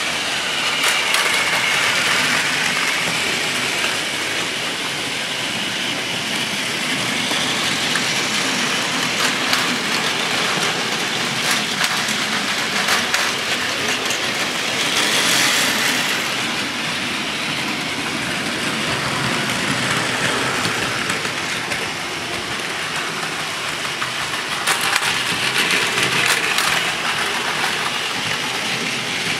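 Several battery-powered Plarail toy Shinkansen trains running at once on plastic track: a steady whirring and rattling of small motors and plastic wheels, with many small clicks. It swells twice, around the middle and near the end.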